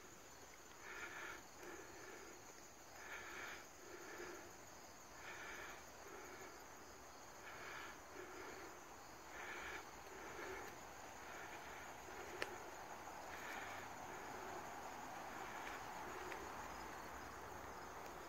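Faint forest ambience of insects: a steady high hum, with a short call repeated about once a second. A single sharp click about twelve seconds in.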